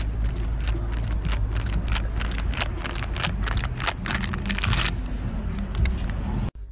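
Wind buffeting a phone microphone: a steady low rumble with rapid crackles, thickest between about one and five seconds in, cutting off suddenly near the end.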